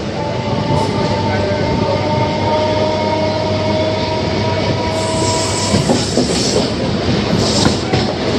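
Electric suburban local train running at speed, heard from its open doorway: wheels rumbling and clattering on the track. A steady two-note whine runs until it fades about six seconds in, and a higher rushing noise joins from about five seconds.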